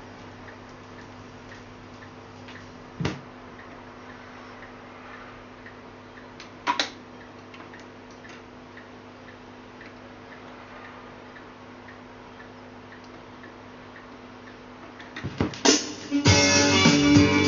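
Telefunken W215 HiFi record changer running its change cycle: a low steady hum from the mechanism, broken by a sharp click about three seconds in and another near seven seconds as the tonearm returns and the next single drops onto the platter. Near the end the stylus sets down with a few clicks and music starts playing from the record.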